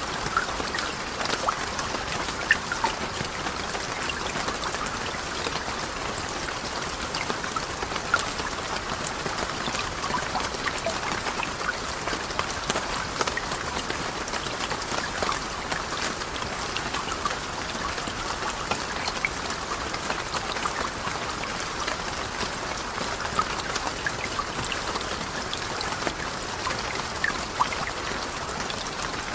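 Steady rain: an even hiss full of many small drop ticks.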